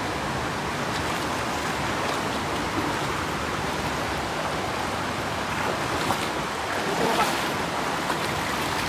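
Steady rush of a shallow river flowing, with a few light splashes of someone wading through it.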